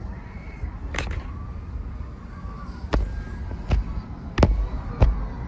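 Firecrackers going off: five sharp pops at uneven intervals, the later four louder than the first.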